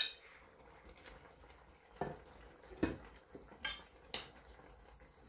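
A few light knocks and clinks of kitchen dishes, a glass bowl and a pan, spaced out with quiet between, as lettuce is tipped and pressed into the pan.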